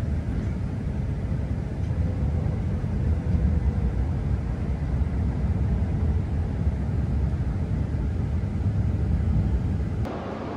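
Cabin noise inside an E6 series Shinkansen rolling into a station: a steady low rumble of wheels and running gear, with a faint steady tone in the middle. It cuts off abruptly near the end to a quieter hiss.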